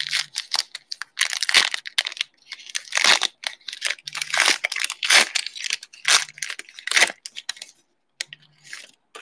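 Foil wrapper of a Panini Mosaic basketball card pack being torn open and crinkled by hand: a run of irregular crackling rips and crumples that thins out about eight seconds in, with a last short rustle near the end.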